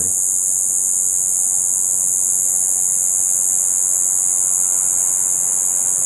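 An insect's continuous, steady, high-pitched buzzing call, which the listener takes for a lone cicada singing unusually early in spring.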